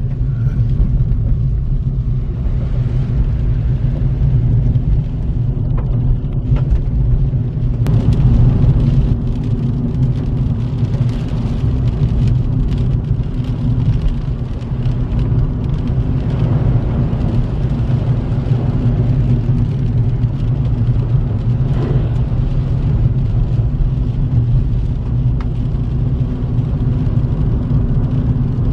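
Steady low rumble of a car's engine and tyres heard from inside the cabin while driving on a wet road.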